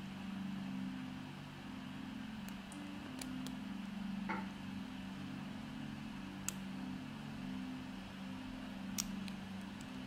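Scattered faint, sharp metallic clicks of a lock pick and tension wrench working the pins of a five-pin EVVA padlock, a few spread over several seconds, over a steady low hum.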